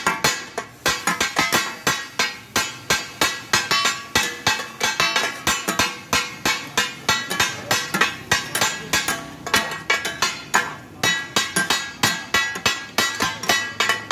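Metal spatulas and blades striking a large flat metal griddle in fast rhythmic clanging, about three to four strikes a second, each with a short ring, as two cooks chop and mince mutton offal for takatak.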